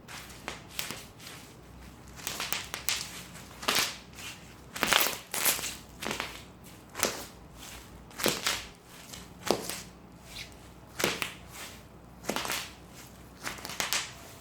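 Bubble wrap being popped and crushed: irregular sharp pops and crackles, roughly one a second, some in quick clusters of two or three.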